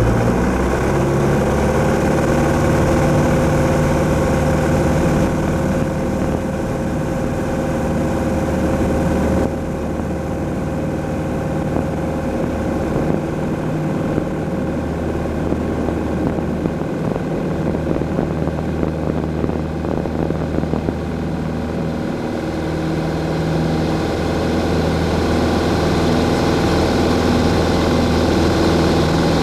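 Grumman AA-5A Cheetah's four-cylinder Lycoming engine and propeller running steadily, heard from inside the cockpit. The engine note drops about a third of the way in and builds again near the end.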